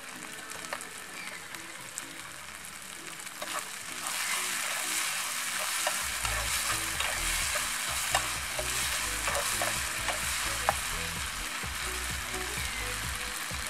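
Food sizzling in a frying pan over a gas burner, getting louder about four seconds in as a metal spatula stirs and scrapes it, with scattered clicks of the spatula against the pan.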